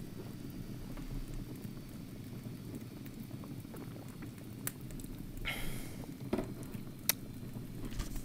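A person sipping tea from a cup, with a couple of light clicks of the cup, over a steady low background noise.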